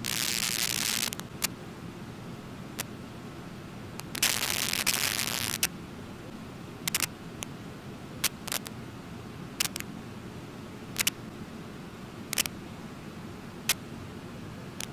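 Steady rush of the Brooks Falls waterfall, with about a dozen sharp clicks scattered through it, some in quick pairs. Two bursts of hiss, each a second or so long, come at the start and again about four seconds in.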